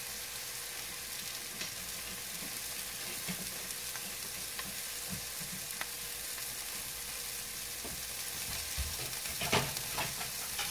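Steak searing in butter in an electric skillet: a steady sizzle with faint crackles, and a few light knocks near the end.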